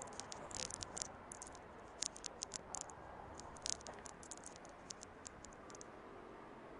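Rapid, irregular sharp clicks and crackles in uneven clusters, stopping about six seconds in, over a faint steady background.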